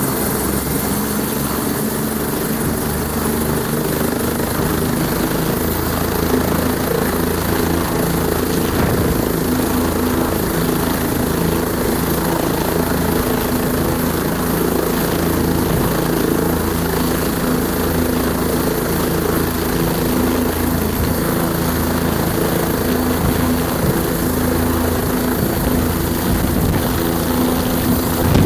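Bell 407 helicopter running on the ground, its single turboshaft engine giving a steady high whine under the low beat of the turning four-blade main rotor.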